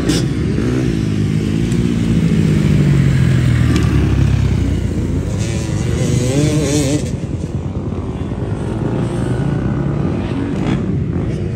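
Dirt bike engines revving on a motocross track, the pitch rising and falling as the riders work the throttle over the jumps.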